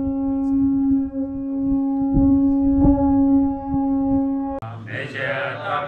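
Tibetan Buddhist monks blowing a horn from the monastery roof, holding one long steady note as the call to morning prayer. About four and a half seconds in it cuts off sharply to monks chanting a mantra.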